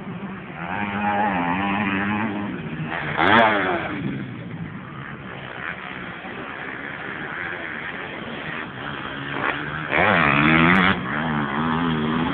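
Motocross bike engines revving up and down around the track, with loud bursts of revving about three seconds in and again around ten seconds in.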